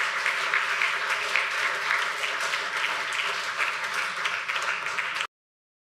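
Audience applauding, many hands clapping at once at an even level. The applause cuts off suddenly about five seconds in.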